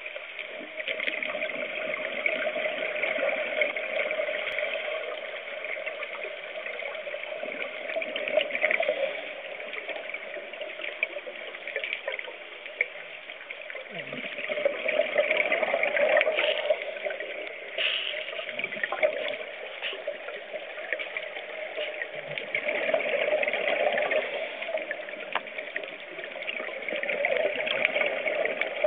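Scuba diver's regulator breathing and exhaled bubbles, heard underwater: a bubbling hiss that swells and eases every few seconds with each breath.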